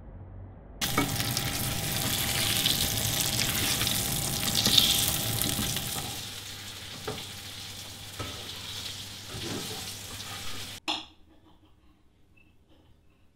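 Food sizzling loudly in a frying pan on a hob, starting suddenly about a second in and then slowly easing off. A few knocks of a utensil sound in the pan. The sizzling cuts off abruptly about eleven seconds in.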